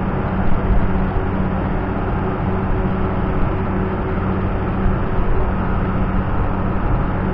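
Loud, steady drone of a running engine or machine, a constant low hum under a wash of noise, like the racket inside an engine room.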